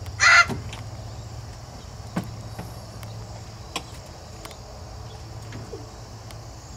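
Crickets chirping steadily in the background while a child climbs into a mini excavator's cab. About a quarter second in there is a loud, brief noise, and later a couple of light knocks as he settles in.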